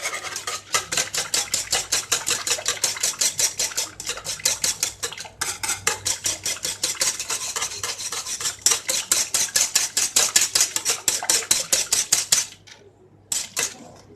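A utensil stirring fast in a pot of cooking lemon juice, sugar and cornstarch, scraping the pot about six times a second; it stops briefly near the end, then starts again.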